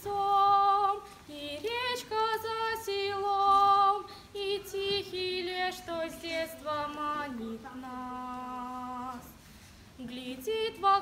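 A girl singing a solo without accompaniment, moving through held notes, with one long low note about two-thirds of the way through and a short breath pause after it.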